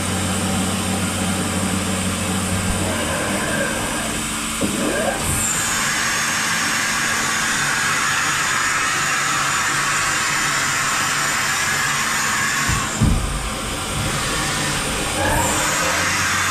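Kia H63 horizontal machining centre running with a steady mechanical hum. About five seconds in, a motor whine starts as its 1-degree indexing pallet table turns the fixture. The whine stops with a clunk about eight seconds later and starts again near the end.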